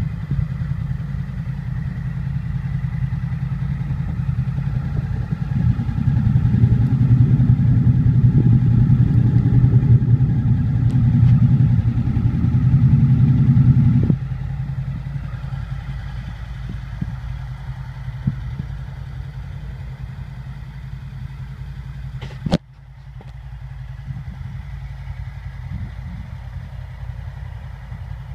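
2002 Honda VFR800's V4 engine idling steadily just after a cold start. It is louder for several seconds in the middle and drops back suddenly about halfway through. A single sharp click and a brief dip come about two-thirds of the way in.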